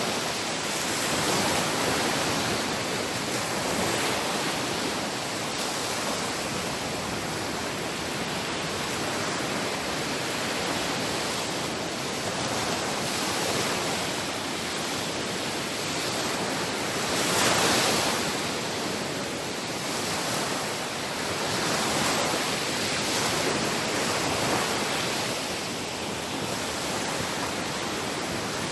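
Sea waves washing in: a steady rushing hiss that swells and ebbs every few seconds, with one louder wave about seventeen seconds in.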